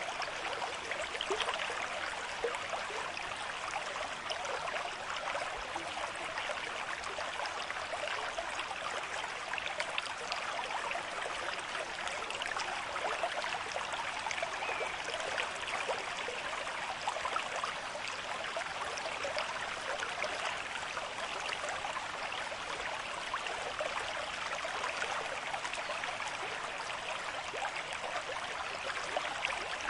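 River stream with moderate flow, water running and splashing steadily over stones, a bright, fine-grained burble without pauses.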